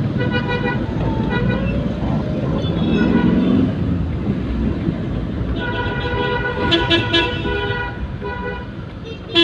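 Vehicle horn honking repeatedly in traffic over engine and road noise. There is a blast at the start, then a long stretch of honking from about halfway in, with quick short toots around seven seconds in and again right at the end.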